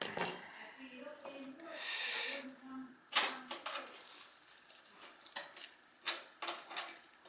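Sharp metal clicks and clinks, spread a second or more apart, from tools and parts being handled while a Beckett oil burner's fuel pump is changed; a short hiss about two seconds in.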